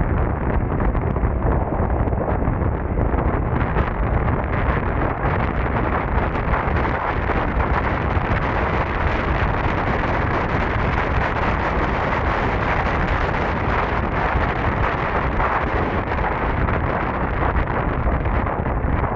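Heavy wind rushing over the camera microphone as an electric scooter is ridden at speed, a steady roar that turns brighter and hissier in the middle and eases near the end.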